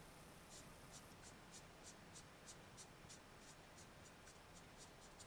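Faint scratching of a marker pen stroked back and forth over a small strip of card, about three strokes a second, blackening what will be the inside of a paper chimney pot.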